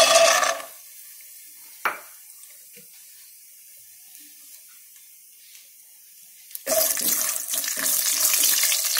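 Raw peanuts poured into hot oil in a pan, landing with a short burst of clatter and sizzle. The oil then sizzles faintly around them, with a single knock about two seconds in. From about seven seconds in, a wooden spatula stirs and scrapes the peanuts around the pan, and the sizzling gets loud.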